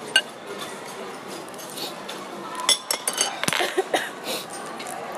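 Tableware clinking: one sharp clink just after the start, then a cluster of clinks and knocks about three to four seconds in.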